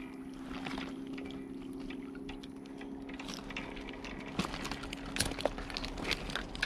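Water splashing with scattered small clicks and drips, growing busier in the second half, as a hooked mullet is brought in. A steady low hum runs underneath.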